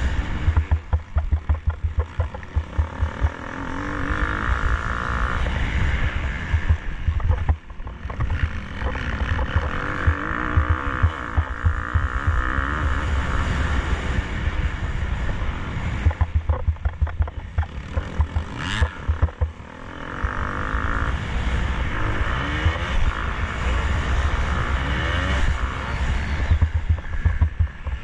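KTM 250 SX-F single-cylinder four-stroke motocross bike engine under race load, revving up and falling back again and again through the corners and gear changes. A brief rising whine cuts in about two-thirds of the way through.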